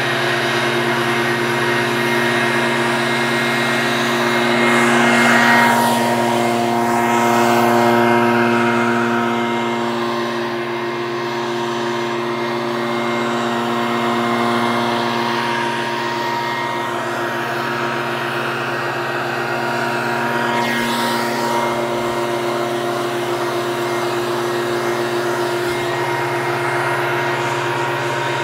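Leaf blower running steadily, its motor holding a constant pitch over the rush of blown air, swelling a little louder about five seconds in.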